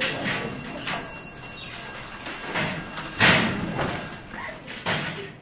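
Metal school lockers being opened and banged shut in a hallway, a string of knocks and clangs with the loudest bang about three seconds in.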